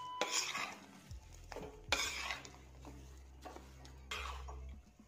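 A spoon scraping and stirring a thick, crumbly mixture of roasted flour, ghee, sugar and dry fruits in a metal kadai, in several separate strokes.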